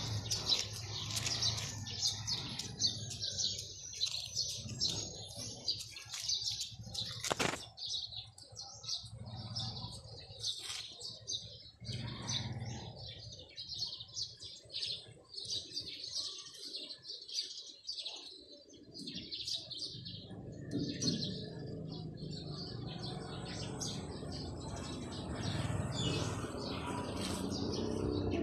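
Small birds chirping rapidly and continuously, with one sharp click about seven and a half seconds in and a low rumble building up near the end.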